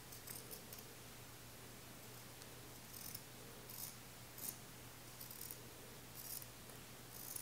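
Household scissors, not fabric scissors, snipping through a long-sleeve top: a faint run of short snips, roughly one a second, with a pause of about two seconds near the start.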